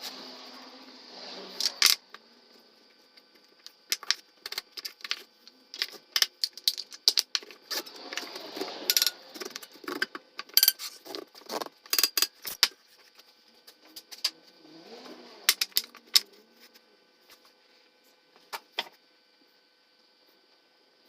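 Sharp clicks and knocks of wooden frame pieces and hand tools being handled during picture-frame assembly, played back at four times speed. The clatter comes in quick irregular clusters, thickest through the middle and thinning out near the end.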